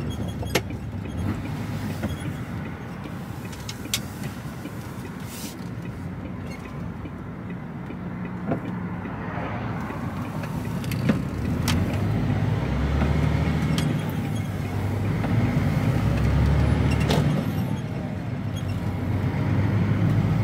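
Heavy goods lorry's diesel engine running, heard from inside the cab, pulling harder and louder from about halfway through as the truck accelerates. Several sharp knocks and rattles from the cab and trailer come through over the engine.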